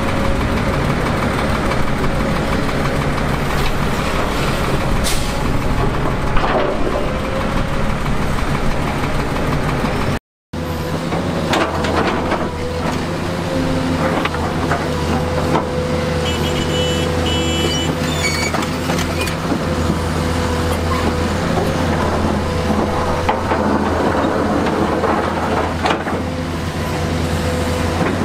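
Heavy diesel engines of construction machinery running steadily, with a few knocks. The sound drops out briefly about a third of the way in, and a run of short high beeps comes a little past the middle.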